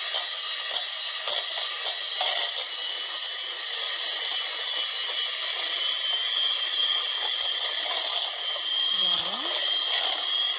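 Electric hand mixer running steadily, its beaters whisking sponge cake batter as flour is added a little at a time.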